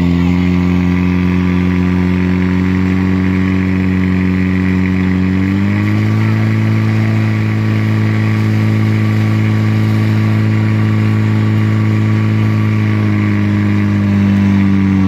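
Portable fire pump engine running at high revs under load, driving water through the hoses to the jets. Its pitch is steady, steps up slightly about five and a half seconds in, and dips briefly near the end.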